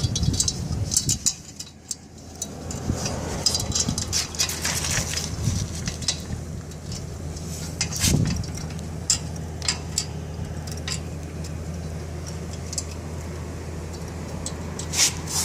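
Small metal chain clinking and rattling in short, irregular bursts as it is worked through a pallet jack's base pin, over a steady low hum.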